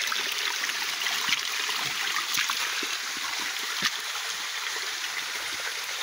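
Water running in a small woodland stream and waterfall: a steady rush, with a few light clicks over it.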